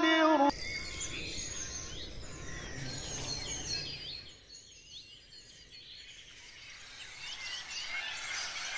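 A chanted recitation voice breaks off half a second in, giving way to a forest ambience of many birds chirping over a soft hiss. The chirping fades in the middle and comes back more strongly near the end.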